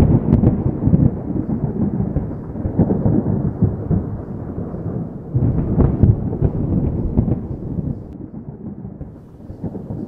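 Distant thunder rumbling and rolling, with a fresh, louder roll swelling up about five seconds in and fading near the end.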